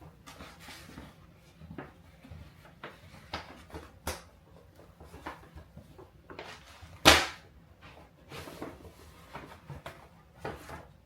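Gift wrapping and packaging being handled: a run of short rustles and light clicks, with one sharp snap or knock about seven seconds in.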